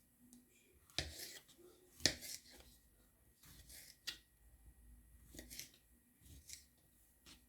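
Scattered handling sounds of food preparation: a few sharp clicks and rustles, the loudest about one and two seconds in.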